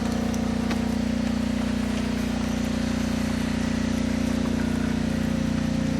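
An engine running at a steady idle, an even, unchanging hum.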